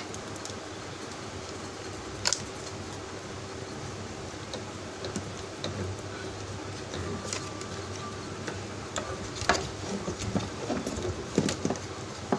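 Small clicks and taps from handling the plastic display panel and its wiring while the touch-button membrane is taken off: one sharp click about two seconds in and a cluster of them near the end, over a steady background hum.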